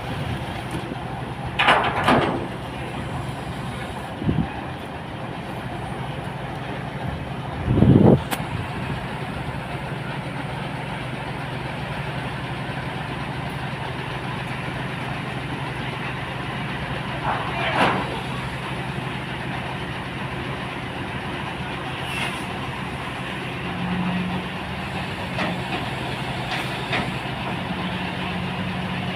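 Heavy truck diesel engine running steadily while a truck-mounted crane lifts a shipping container. Its note swells a little near the end. Brief louder noises, shouts or knocks, come about 2, 8 and 18 seconds in.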